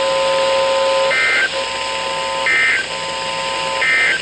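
Emergency Alert System end-of-message signal: three short bursts of warbling SAME digital data tones, about a second and a half apart, with a steady tone in the gaps between them. It marks the close of the warning broadcast.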